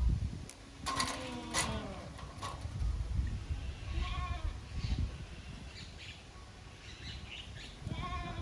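Short pitched animal calls: a few about a second in, more around four seconds and near the end, over a low rumble.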